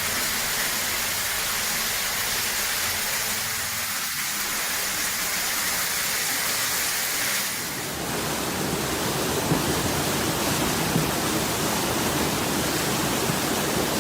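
Steady rushing-water noise of heavy rain and flowing water, which grows fuller and deeper about eight seconds in.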